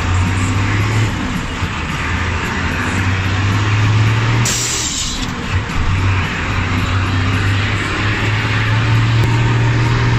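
Chicken bus's diesel engine running under way, its pitch rising and falling, over loud road noise, with a short burst of hiss about four and a half seconds in.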